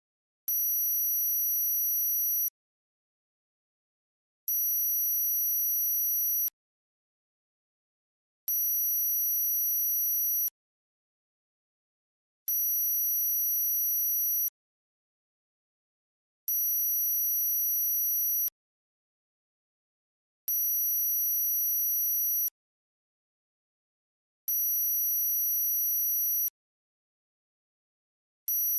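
Synthesized very high-pitched electronic tone for tinnitus masking, pulsed in two-second beeps with two seconds of silence between, repeating evenly: seven full beeps, with an eighth starting near the end.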